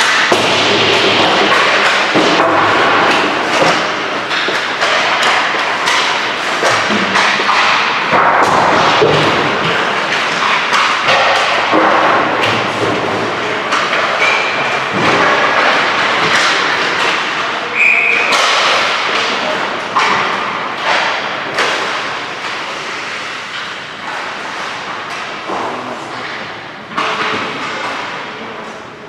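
Ice hockey play on a rink: skate blades scraping the ice, with frequent sharp knocks of sticks and pucks hitting sticks and the boards. It gets somewhat quieter near the end.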